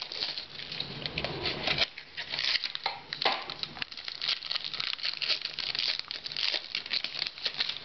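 Trading card pack wrapper being torn open and crinkled by hand: irregular crackling and short tearing rasps throughout.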